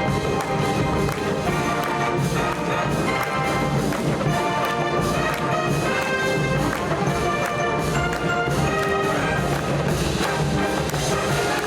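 A large high-school wind band playing: full brass section with trumpets and trombones holding and moving chords over a steady drum beat.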